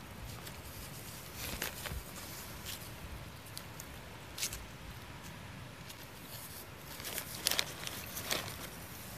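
Common brushtail possum rummaging in plastic shopping bags and a foil food wrapper, the plastic crinkling and rustling in irregular spells, loudest a little after seven seconds in.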